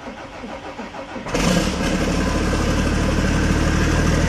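Diesel engine of a MAN race truck running steadily at idle, coming in suddenly and loudly about a second in.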